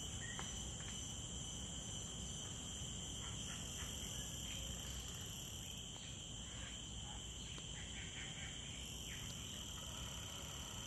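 Steady high-pitched drone of forest insects, several continuous shrill tones layered together.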